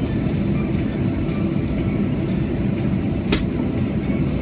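Steady low rumble of a jet airliner's engines heard inside the passenger cabin, with one sharp click about three seconds in.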